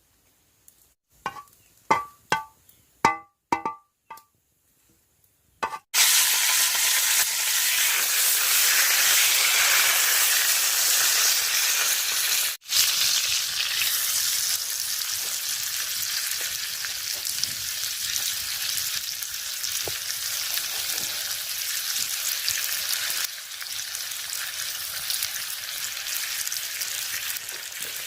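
A series of sharp knocks and clinks with a short ring, then, about six seconds in, food starts sizzling in a hot pan over a campfire: a loud, steady frying hiss.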